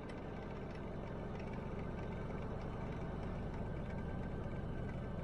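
Steady engine and road rumble heard from inside a pickup truck's cab while driving, even throughout with no distinct events.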